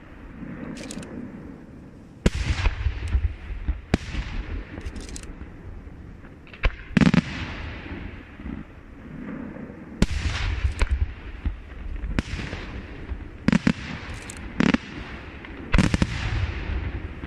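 Aerial firework shells bursting in a night display: about seven sharp bangs, one every one to three seconds, each trailing off in a rumbling echo.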